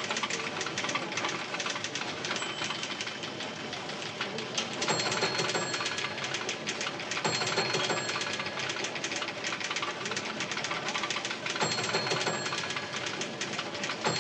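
Continuous fast mechanical clatter of office machines, with a high steady tone sounding several times, about a second each.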